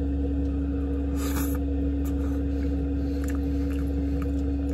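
Steady mechanical hum with a constant low tone, under a few faint small clicks from eating with a fork.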